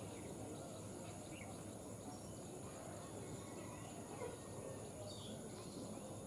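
Faint outdoor ambience: a steady high insect buzz and a low background rumble, with a bird chirping briefly twice.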